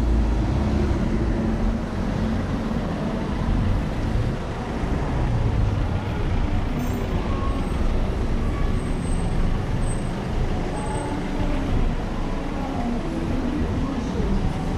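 City street traffic: cars and vans running and passing close by, a steady mix of engine and tyre noise.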